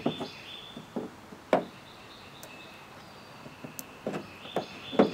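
Irregular knocks and clunks from inside a hollow plastic kayak hull as a hand works a backing plate and nut onto the mounting bolts from beneath. There are about seven sharp knocks, with a quiet stretch in the middle.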